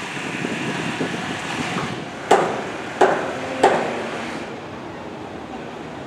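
Three hammer blows about two thirds of a second apart, each with a short ringing tail, from workers building wooden roller-coaster track, over a steady outdoor wind hiss.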